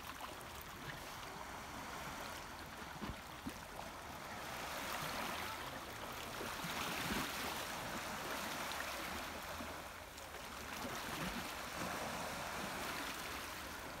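Small sea waves lapping and washing over rocks at the water's edge, a steady hiss of moving water that swells and eases every few seconds.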